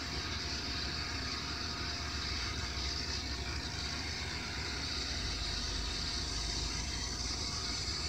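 Steady machine noise of a Caterpillar 320D excavator working a hydraulic breaker hammer on quarry rock, heard through a screen's speaker.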